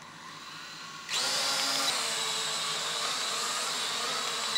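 Small toy camera quadcopter's motors and propellers starting about a second in, then a steady high-pitched whine as it lifts off and hovers.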